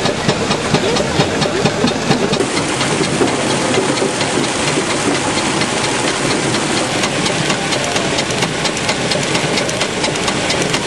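Small stationary steam engine, fed by a coal-fired vertical boiler, running steadily: a rapid, even clatter of knocks over a steady hiss.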